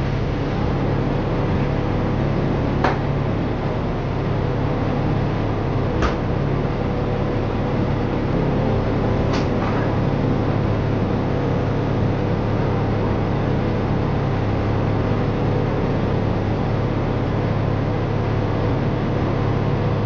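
Steady low engine and road drone heard inside a moving bus, with three sharp clicks about three seconds apart in the first half.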